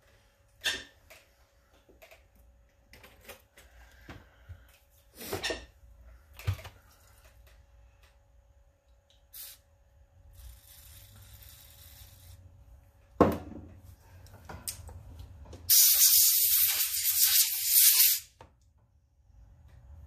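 Aerosol brake cleaner sprayed through a straw tube into the passages of a small generator carburetor to flush them clean: a short fainter spray about halfway through, then a loud hiss lasting about two and a half seconds near the end. Small metal parts clink and knock on the bench between sprays, with one sharp knock just before the long spray.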